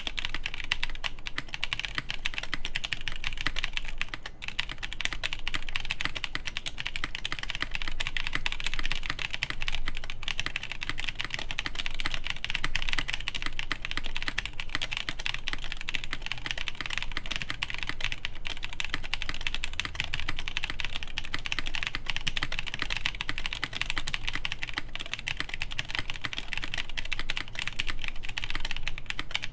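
Continuous typing on a Pontus 21xx mechanical keyboard with Durock Ultramarine V2 switches, GMK ABS keycaps and a plateless main cluster: a dense stream of keystroke clacks, briefly lighter about four seconds in.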